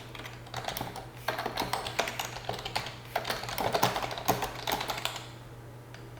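Typing on a Logitech K350 wave-contoured wireless keyboard: quick, irregular key clicks in runs, dying away about five seconds in.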